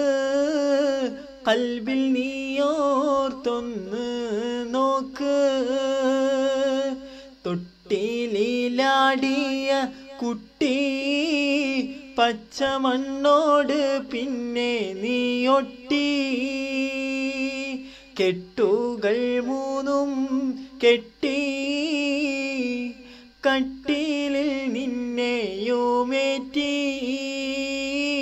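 A man singing a Malayalam song solo, apparently unaccompanied, in long phrases with ornamented, wavering pitch and short breaks between lines.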